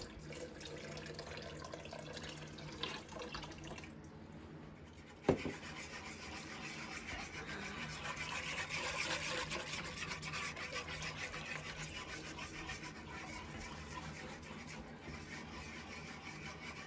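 Wire whisk stirring a cornstarch slurry into hot meat juices in a slow cooker's metal pot to thicken gravy: a rapid scraping and swishing. It is preceded by the slurry being poured in and a sharp knock about five seconds in.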